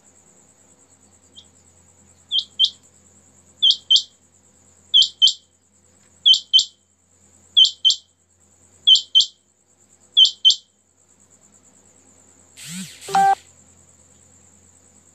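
Caged male quail calling: a quick two-note call repeated seven times, about once every second and a half. Near the end comes a louder, harsher double sound.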